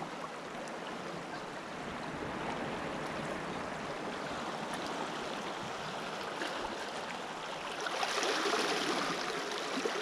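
Small waves washing and trickling among rocks at the water's edge, with a louder surge of water about eight seconds in.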